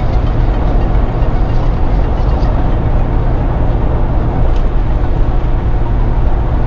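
Steady road and engine noise inside the cabin of a Ford Crown Victoria Police Interceptor cruising at highway speed, a constant deep rumble.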